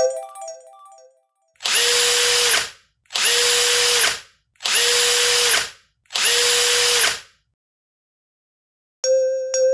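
Four loud, harsh, noisy buzzes of about a second each, evenly spaced, each with a steady tone inside it: a cartoon sound effect. Light background music fades out at the start and comes back near the end.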